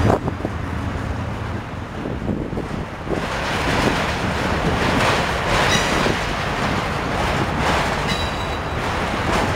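Freight train of autorack cars rolling past, its wheels on the rails giving a steady rumble and clatter that gets louder from about three seconds in. Brief high-pitched wheel squeals come twice, around the middle and near the end.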